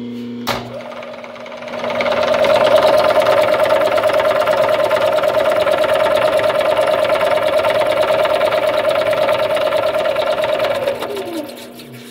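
Bridgeport variable-speed milling head running, with a sharp click about half a second in. It builds to a loud, fast rattling clatter over a steady whine, then falls in pitch and winds down near the end. The owner can't pin down the clunk: he suspects a loose keyway and a belt starting to shred.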